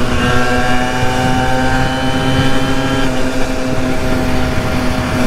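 Simson 50 cc two-stroke moped engine running at a steady cruising speed, its note holding one pitch; the higher part of the note fades about three seconds in. Wind rumbles on the helmet/GoPro microphone underneath.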